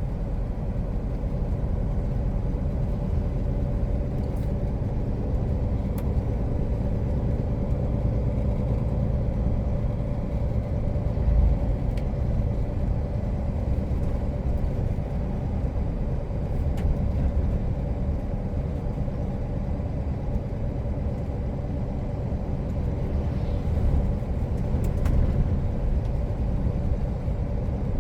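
Truck's diesel engine running steadily while driving, heard from the cab: a constant low rumble with a steady drone, with a few faint clicks here and there.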